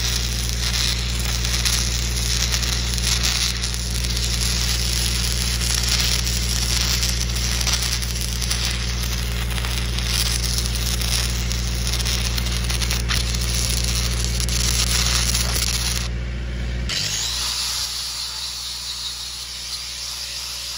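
Stick-welding arc on a 1/8-inch 6010 cellulose rod crackling steadily over a low steady hum, laying a fill pass into gaps in a steel joint. About three-quarters of the way through it cuts to an angle grinder running on the weld.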